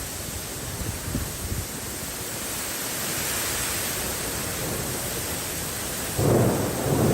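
Severe thunderstorm: a steady rushing noise of heavy wind-driven rain, with a louder low surge about six seconds in.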